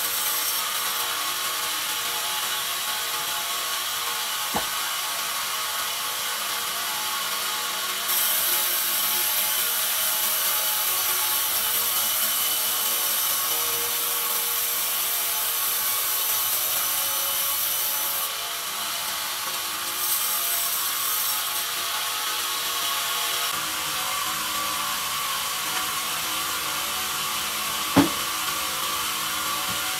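Log band saw running and cutting lengthwise through a pine log, a steady hissing saw noise that grows louder and sharper from about 8 to 18 seconds in. A sharp knock near the end.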